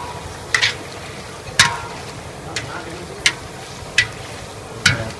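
Hot oil sizzling steadily as round slices deep-fry in a metal wok, with about six short, sharp scrapes of a wire skimmer against the wok as they are stirred.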